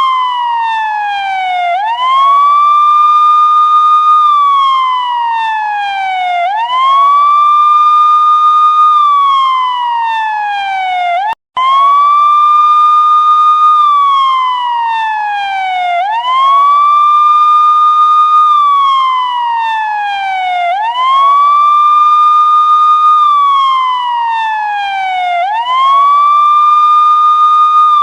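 Police car siren wailing. In each cycle it climbs quickly, holds a high note for about two seconds, then slides slowly back down, repeating every four to five seconds. The sound cuts out for an instant about eleven seconds in.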